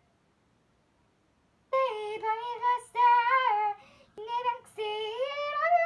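A young girl singing, starting about two seconds in: a few short sung phrases, then a longer held phrase that rises and falls in pitch.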